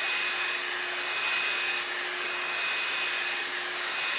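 Revlon hot air brush running on its low setting: a steady rush of blown air with a faint, steady motor whine.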